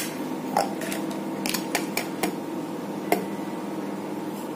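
A stainless cocktail shaker being emptied into a plastic cup of ice: a handful of sharp clinks and taps of metal and ice, spread over the few seconds, over a steady low hum.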